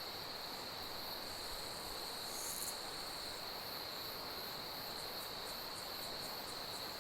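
Night insects, crickets by their sound, trilling in one steady high note, with a second insect's short chirps repeating about two or three times a second from about five seconds in. A brief high hiss comes about two and a half seconds in.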